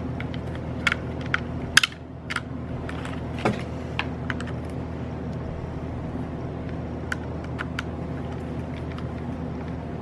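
Small irregular clicks and taps of a Phillips screwdriver and screw against the plastic wheelie bar and chassis of an RC truck as a screw is driven in, over a steady low hum. The sharpest click comes just before two seconds in.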